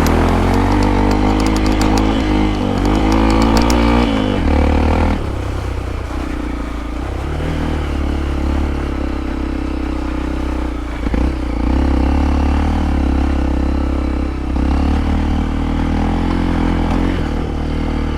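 Hero Impulse motorcycle's single-cylinder engine under way on an offroad trail, revs rising and falling, with a clattering rattle over the first four seconds and the revs dropping about five seconds in before picking up again.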